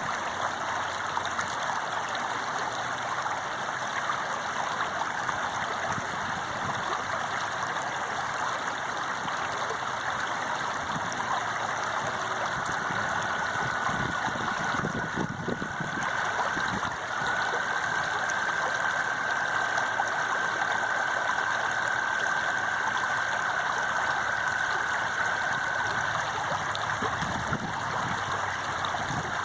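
Water flowing steadily in a stream, an even rushing with no pauses. From about twelve seconds in, a thin steady high tone sits over it for roughly fourteen seconds, briefly breaking off partway through.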